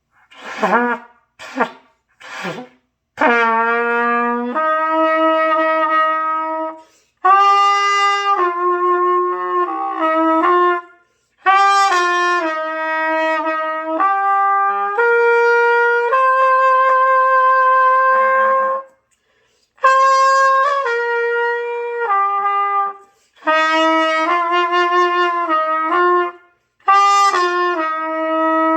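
Trumpet played by a learner: a few short notes at the start, then a slow melody of long held notes, phrase by phrase, with short breaks for breath.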